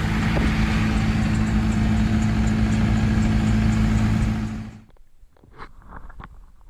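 A motor vehicle's engine running steadily with a low hum. It cuts off abruptly about five seconds in, leaving only faint knocks and clicks.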